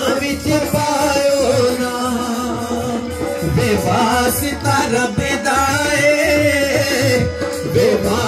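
Live Sufi devotional song with a male voice singing, a steady harmonium note underneath, and dholak hand drums keeping a steady beat.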